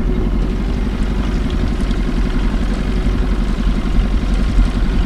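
Boat engine running steadily at slow trolling speed, a low, evenly pulsing rumble.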